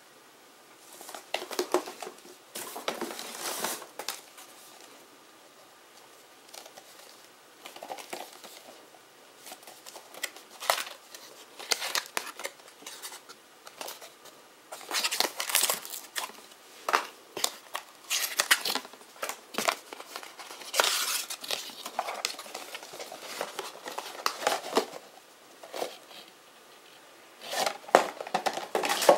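Cardboard and paper packaging being handled: boxes slid and lifted out of a cardboard carton, with rustling and crinkling in irregular bursts.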